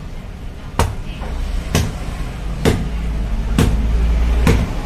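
A large knife chopping into a coconut, five sharp strikes about a second apart, with the nut turned between blows. A low steady rumble runs underneath and grows louder toward the end.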